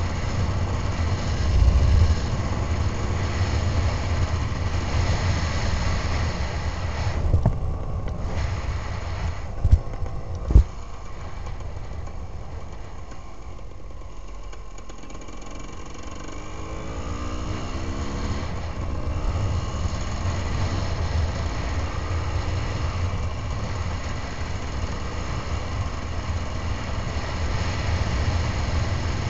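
Enduro motorcycle engine heard from on the bike as it rides along a road, easing off and quieter in the middle, then pulling away again with rising pitch. A few sharp knocks come around ten seconds in.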